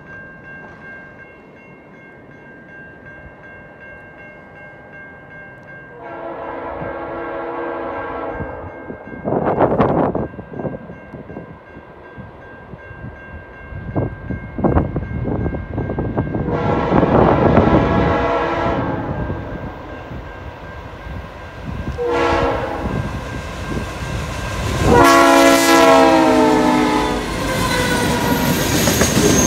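Leslie RS3L air horn on a CN Dash 8 locomotive blowing the grade-crossing signal: two long blasts, a short one, then a final long one. Near the end the train rumbles past close by.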